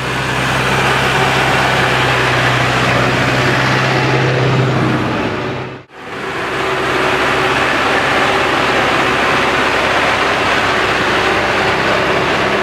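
Zetor tractor's diesel engine running steadily under load while pulling a reversible plough through the soil, in two stretches split by a short break about six seconds in.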